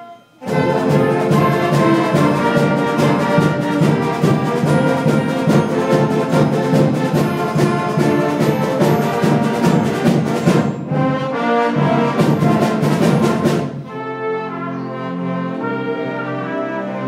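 A band with brass and drums comes in loud on the conductor's cue about half a second in and plays a fast, loud passage. It breaks briefly about two-thirds through, then settles into softer sustained brass chords near the end.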